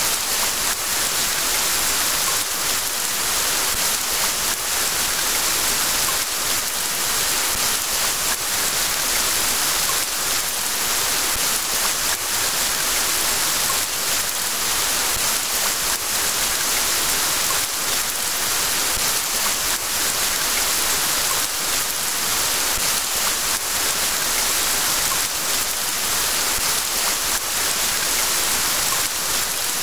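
Steady rain falling, an even hiss of drops that keeps on without a break.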